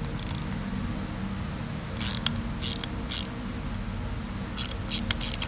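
Socket ratchet clicking in short bursts as a nut on a motor mount is turned loose.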